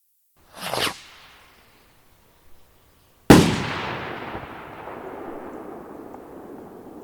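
A short rushing whoosh about half a second in, then a sudden loud explosion some two and a half seconds later that dies away in a long, slowly fading tail.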